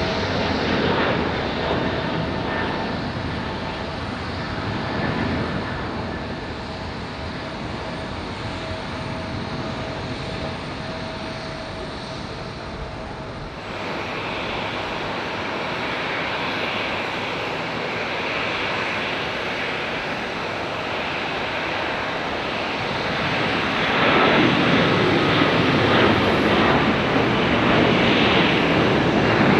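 Jet airliner climbing out after takeoff: engine roar fading away with a steady whine. About halfway through, the sound cuts to a steady rushing airport ambience, louder for the last few seconds.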